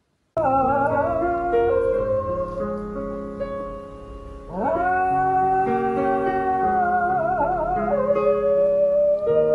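A dog howling along to guitar music: the music starts abruptly just after the start, and the howl slides up about halfway through, then holds one long note that wavers near the end.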